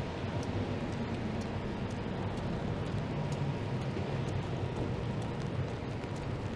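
Downtown street ambience in the rain: traffic running on the wet road with a steady hiss and a low engine rumble that is strongest through the middle, and faint light ticks scattered throughout.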